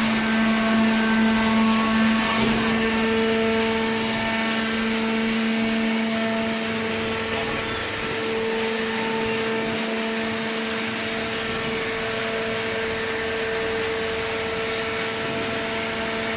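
Vertical hydraulic baler's electric motor and hydraulic pump running with a steady hum and whine.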